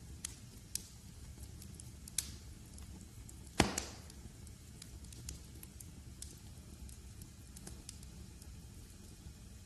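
Wood fire crackling in a fireplace: scattered sharp pops and snaps over a low, steady rumble, with one loud pop just over a third of the way in.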